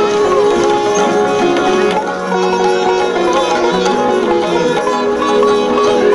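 Instrumental background music: a melody moving in steps over a held drone note.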